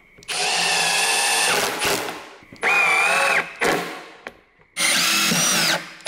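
Milwaukee M18 cordless drill driving screws into a wooden board: three runs of a steady motor whine, each about a second long, the middle one shortest.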